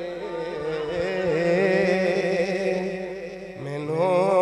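A man's voice chanting Punjabi devotional verse with no instruments, holding long wavering notes. There is a short break about three and a half seconds in, then the next line starts louder.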